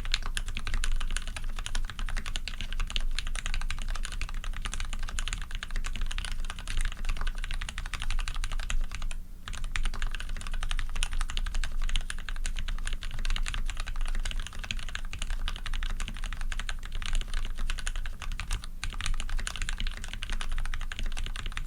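Continuous fast typing on a PC Dolphin custom mechanical keyboard with lubed Cherry Retooled Black linear switches, brass plate and PBT keycaps: dense, steady keystroke clacks, with two brief pauses about nine seconds in and about nineteen seconds in.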